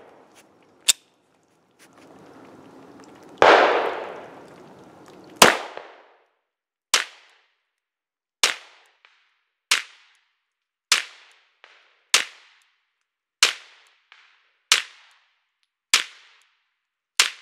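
Single shots from a 9mm Polymer 80 Glock 19–type pistol fired at a slow, even cadence: ten sharp reports about one every 1.2 seconds, each with a short echo, after a louder burst with a long rushing tail about three and a half seconds in. The pistol is firing brass-cased Sellier & Bellot rounds and cycling with no stoppages.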